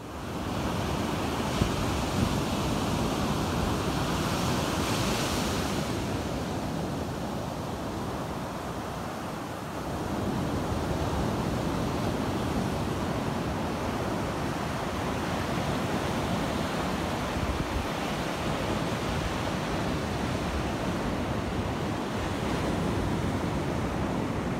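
Ocean surf breaking and washing up a sandy beach in a steady wash, with wind on the microphone.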